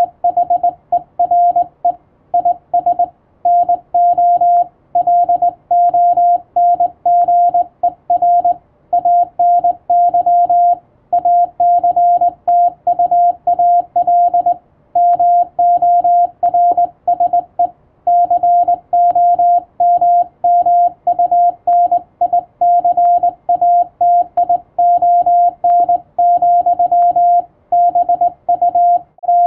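Morse code (CW) sent by hand as a single steady mid-pitched tone, keyed on and off in short dots and longer dashes with brief gaps between characters and words.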